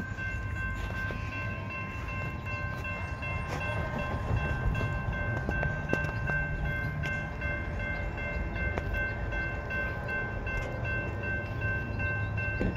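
Railroad grade-crossing warning bell ringing steadily, its repeated strokes blending into a constant high chime, over a low rumble that grows slightly louder toward the end.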